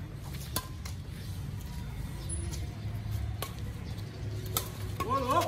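Badminton racket strings hitting a shuttlecock during a rally: a few sharp clicks spaced irregularly, over a steady low rumble. A person's voice calls out briefly near the end.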